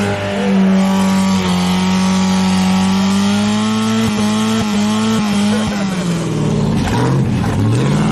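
A 4x4's engine held at steady high revs for about six seconds, then the revs drop and rise again several times near the end.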